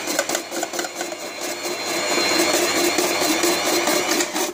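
Silvercrest SKM 550 B1 food processor's electric motor running steadily, spinning the coarse shredding disc to shred carrots, with a high whine over a steady hum.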